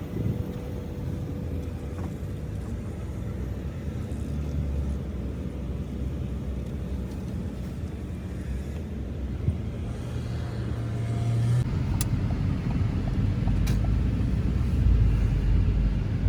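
Steady low rumble of a car driving, heard from inside the cabin, with two sharp clicks in the last few seconds.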